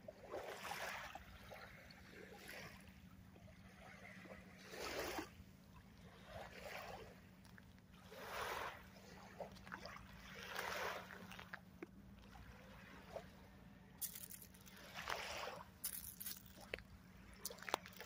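Small waves lapping softly on a sandy shore, washing in as faint rushing swells every few seconds, over a faint steady low hum.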